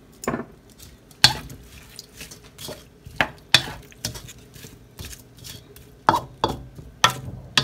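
Wooden utensil knocking and scraping against a wok as vegetables are stirred: a dozen or so irregular clacks.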